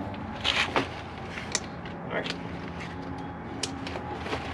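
A soft tackle crate being handled in a kayak's plastic crate: rustling and a few sharp, short clicks and knocks of its clips and fittings, over a steady low hum.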